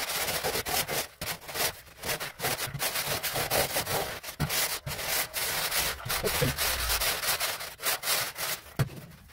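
Wooden straightedge dragged over a crumbly sand-cement floor screed: a gritty scraping in repeated strokes with short pauses between them, dying down near the end.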